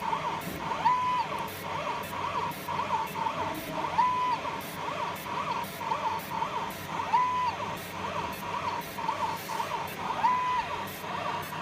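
Fiber laser marking machine's galvo scan head buzzing as it traces the marks. It makes a quick run of short chirps, broken by a longer held tone about every three seconds, in a cycle that repeats evenly.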